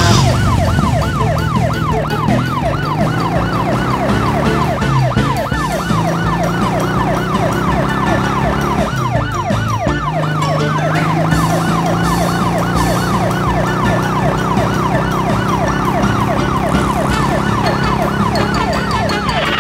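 Police siren in a fast yelp, its pitch sweeping up and down two to three times a second without a break.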